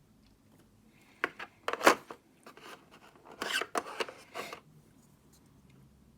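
Rustling and scraping of board-game packaging being handled, in two short clusters of quick strokes: one about a second in, and another about three and a half seconds in.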